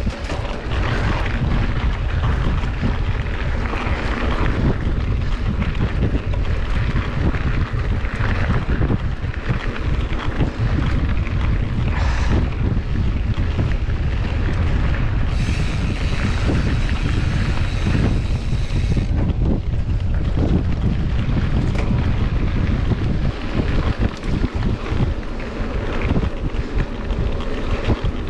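Loud, steady low rumble of wind buffeting the microphone, with a broad hiss over it and a brief brighter hiss from about 15 to 19 seconds in.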